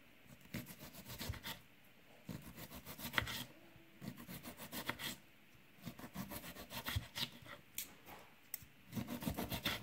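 A kitchen knife slicing through a raw potato onto a wooden cutting board, in several short runs of quick strokes with brief pauses between.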